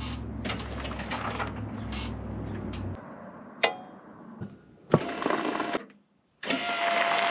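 Tow tug at work: a steady low hum, then two sharp clicks as its toggle switches are flipped, then a motor running with a steady whine near the end.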